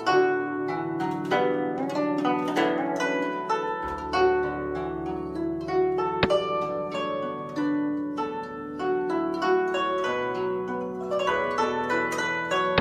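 Background music of plucked strings, a flowing run of harp- or zither-like notes.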